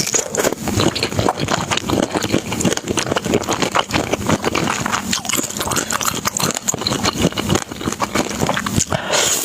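Close-miked eating sounds: a dense, unbroken run of wet chewing clicks and smacks.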